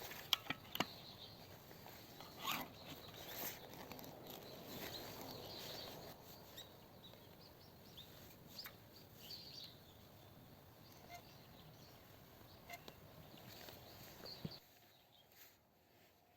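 Faint outdoor background noise with scattered light clicks and knocks, several close together in the first second. The background cuts off abruptly near the end.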